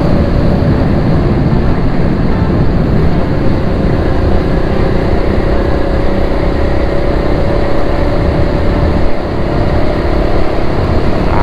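KTM Duke 250's single-cylinder engine running at a steady speed while riding, under heavy wind rumble on a chest-mounted camera microphone.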